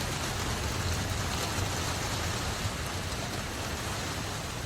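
Steady rain falling, with a low, even rumble underneath.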